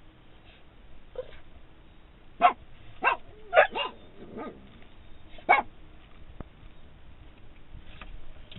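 Dog barking inside a car, a run of short separate barks, the loudest coming between about two and a half and six seconds in, with weaker ones before and near the end. The dog is barking at its owner standing outside the car, begging to get out.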